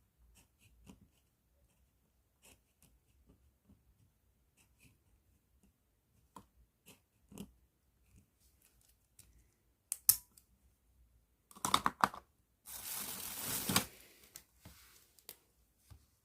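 Pen inside a plastic bag being handled: faint scattered ticks, a few sharp clicks about ten to twelve seconds in, then about a second of loud scratchy crinkling that builds and cuts off.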